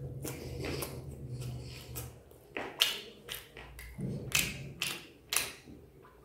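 Someone eating chicken by hand, with a run of short, sharp wet mouth smacks and chewing from about halfway through. A low steady hum fades out about two seconds in.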